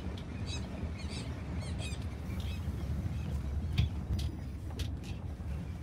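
Steady low rumble of a car driving, with a few high bird chirps in the first couple of seconds and a handful of sharp clicks in the middle, the loudest about four seconds in.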